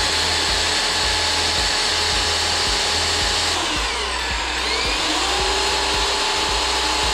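Electric drill running with a stepped pocket-hole bit, boring an angled pocket hole through a wooden board held in a pocket-hole jig. The motor runs steadily, its pitch sagging for about a second midway and then climbing back.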